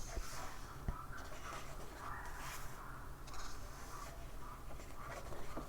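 Soft rustling and handling of paper pages, with a small click about a second in.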